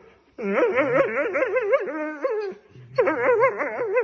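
A dog grumbling in long, warbling whines, the pitch wavering quickly up and down: two long calls with a short break between them.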